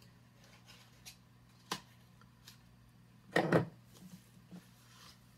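Objects being handled on a tabletop: scattered light clicks, a sharp click nearly two seconds in and a louder short clatter about three and a half seconds in, over a faint steady hum.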